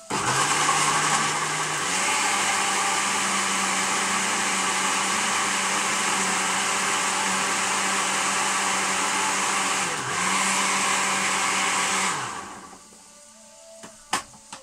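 Electric countertop blender blending green chillies with a little water, its motor running loud and steady. Its pitch steps up about two seconds in, it stops and restarts briefly near ten seconds, and it winds down after about twelve seconds. A couple of sharp clicks follow near the end.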